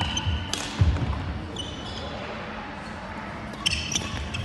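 Badminton rally on a wooden sports-hall court: players' shoes squeaking on the floor, sharp racket strikes on the shuttlecock, and heavy footfalls, the loudest a thud just under a second in.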